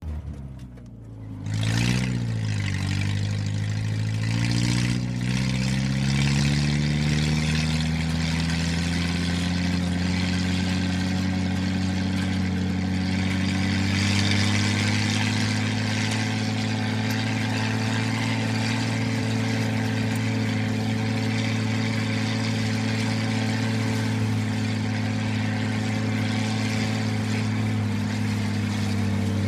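A motor running with a steady pitched drone. After a brief dip near the start, its pitch climbs over several seconds and then holds level.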